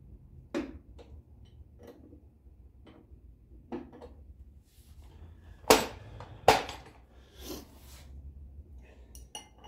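Hand tools clicking and knocking against metal in brake work, with scattered light clicks and two loud sharp knocks a little past halfway, under a second apart, then a softer one.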